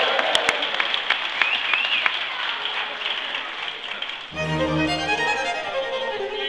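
Echoing hubbub of an indoor swimming pool hall, with children's voices and splashing. Music starts suddenly about four seconds in.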